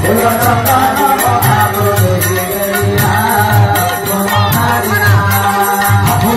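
Odia devotional bhajan music: a sung melody over a steady drum beat, with a bright jingling stroke on the beats.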